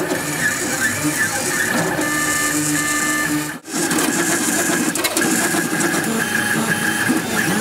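A 3D printer's stepper motors whining in steady tones that jump up and down in pitch as the print head moves back and forth while printing. The sound drops out briefly about three and a half seconds in.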